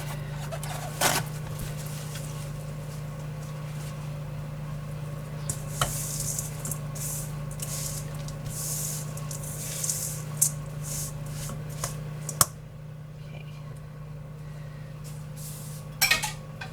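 Kitchen handling sounds: rustling and scraping with a few short knocks and clicks, as of a spoon working oats in a bowl and ingredients being handled. A steady low hum runs underneath.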